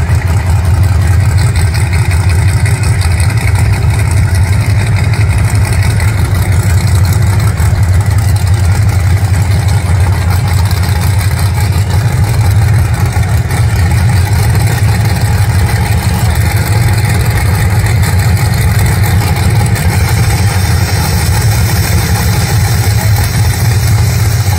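Race-prepped pickup engine idling with a steady low rumble. Near the end a nitrous purge hisses.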